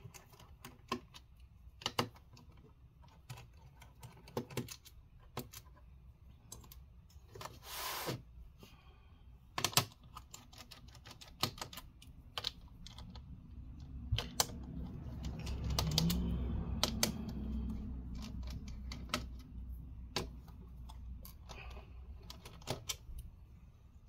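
Irregular clicks and taps of a screwdriver and small parts on a Dell Inspiron 5558 laptop's plastic case as it is taken apart, with a stretch of louder handling noise partway through.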